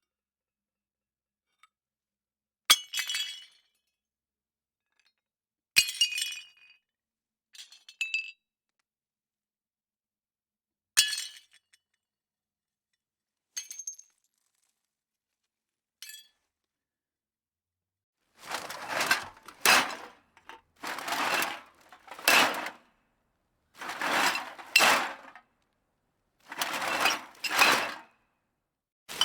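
Ceramic plates smashing one at a time, about six separate breaks a few seconds apart with clinking shards after each. About two-thirds of the way in it changes to cans being jostled in a bag: four or five rustling, clinking bursts, one every second or two.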